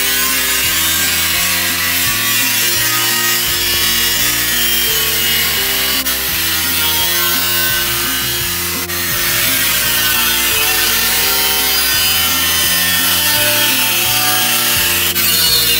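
Angle grinder with a cutoff wheel cutting through the steel wall of a drum: a steady, high grinding hiss that dips briefly twice, near six and nine seconds in. Music plays underneath.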